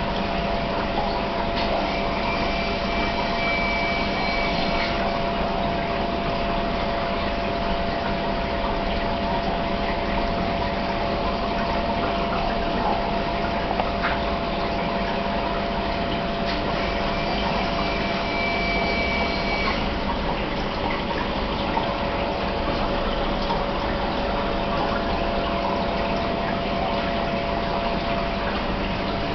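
Aquarium filter and pump running steadily, water trickling and churning over a constant hum. A faint high whine joins in twice for a few seconds.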